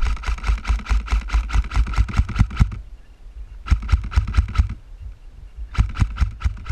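Airsoft electric gun firing on full auto in three bursts: a long burst of about two and a half seconds, a shorter burst around four seconds in, and another near the end, each a rapid, even rattle of shots.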